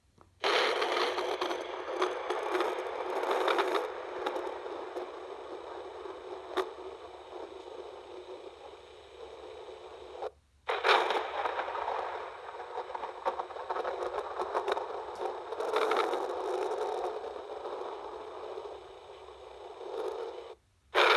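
Two thunder recordings, one after the other. Each opens with a sudden crackling clap, then rolls on unevenly and fades over about ten seconds, with a short silence between them. There is little deep rumble.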